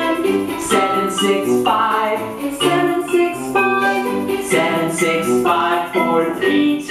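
Children's counting song: a voice singing the numbers one to seven over a plucked-string accompaniment.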